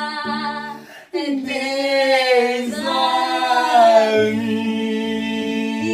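A man and a woman sing a long, wordless closing note together over a nylon-string classical guitar. About a second in there is a sudden fresh attack. From about four seconds the voices settle lower into a steady held chord.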